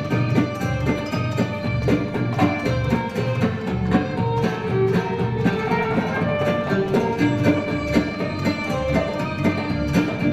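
Middle Eastern ensemble music: plucked strings and violin playing a melody over a steady, regular drum rhythm.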